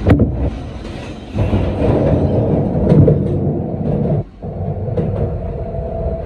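A 2007 Kawasaki R160B subway car with Siemens propulsion running through a tunnel: a loud, steady rumble with sharp clicks of wheels over rail joints. About four seconds in a steady whine joins, as the train slows for the next station.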